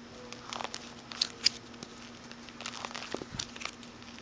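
Paper or plastic crinkling and rustling as photographs are handled: a scattering of small crackles and rustles over a faint steady hum.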